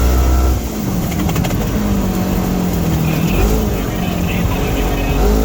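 Polaris side-by-side engine running on the move, its note rising and falling with the throttle and briefly swelling up in quick revs a few times.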